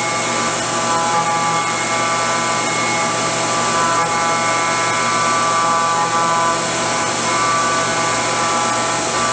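CNC milling machine spindle running at high speed while a small end mill cuts a 52100 tool steel coin die: a steady high-pitched whine over a cluster of cutting tones that shift every few seconds as the tool path changes.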